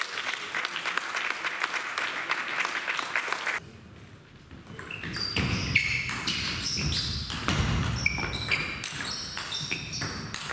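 Table tennis rally: the ball clicking back and forth off the rackets and the table, with short high squeaks of shoes on the sports-hall floor. The sound drops away suddenly for about a second a third of the way in.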